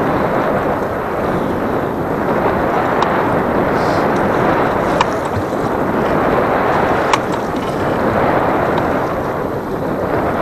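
Wind buffeting the microphone: a steady rushing noise, with a few sharp clicks along the way.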